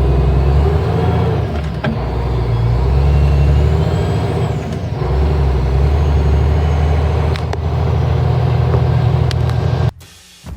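Concrete pump truck's diesel engine running loud and low, its note swelling and easing a few times as the truck gets under way. It cuts off abruptly near the end.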